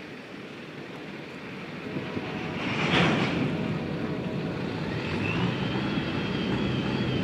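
Freight train of covered hopper cars rolling past on the rails, a steady rumble and rush growing louder, with a swell about three seconds in. From about five seconds in a thin, slightly wavering high squeal runs over the rolling noise.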